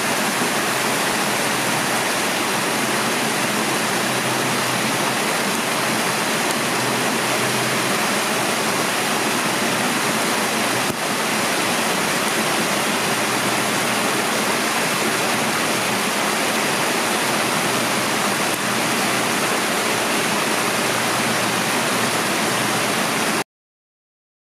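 Creek water rushing steadily down a small rocky cascade. The sound cuts off suddenly about a second before the end.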